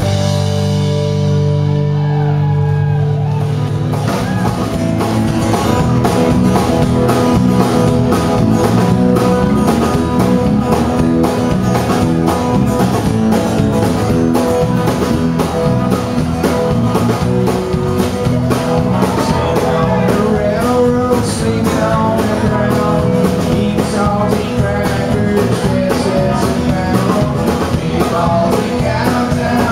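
Live country band playing with electric bass, acoustic guitar, Telecaster-style electric guitar and drums. It opens on a ringing held chord, then the drums and band come in with a steady beat about four seconds in.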